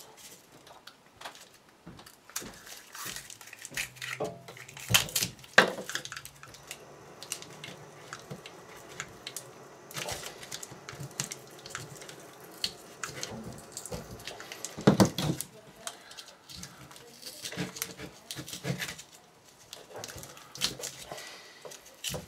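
Hands handling and cutting apart a firework shell on a tabletop: scattered clicks, knocks and rustles of the paper casing and tools, with louder knocks about five seconds in and again about fifteen seconds in.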